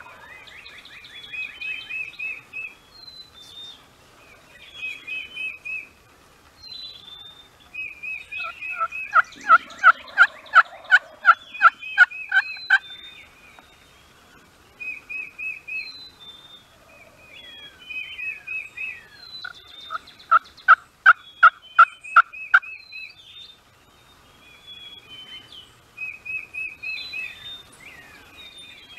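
Wild turkey calling in two long series of loud, evenly spaced calls, about three a second, the first about nine seconds in and the second about twenty seconds in. Songbirds sing short high trills again and again throughout.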